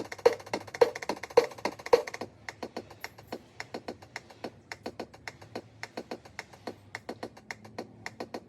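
Percussive music: a steady wood-block-like beat for about two seconds, then a lighter, quicker ticking rhythm.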